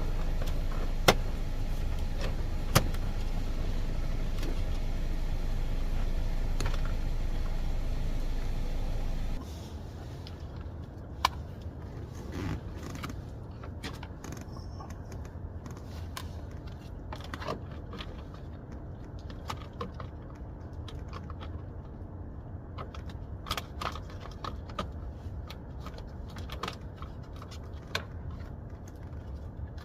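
Scattered clicks, taps and light rattles of plastic steering-column trim pieces being handled and snapped back into place. A steady background hum runs under the first nine seconds or so and then stops abruptly.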